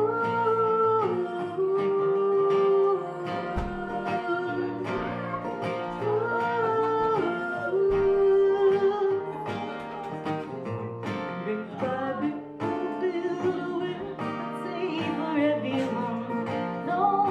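Acoustic folk music: a picked acoustic guitar with a slow melody of long-held notes over it.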